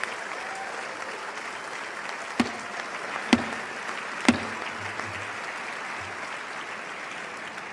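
A large crowd applauding steadily, with three sharp louder claps or clicks standing out about two and a half, three and a half and four and a half seconds in.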